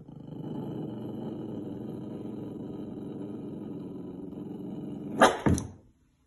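A puppy growling at her own reflection in a mirror, one long unbroken growl lasting about five seconds. Near the end come two sharp barks close together, the loudest sounds.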